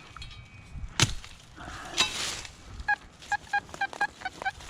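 A knock and a scrape of digging in the soil, then from about three seconds in a metal detector's short beeps at one steady pitch, about four a second, as it passes over a target that the digger takes for shallow junk.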